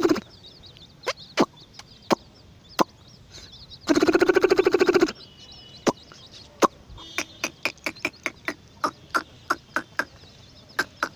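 Animal calls: one loud, pitched call with a fast wavering pulse, about a second long, about four seconds in, set among short sharp clicks that come irregularly at first and then at about three a second in the second half. Faint high chirping runs underneath.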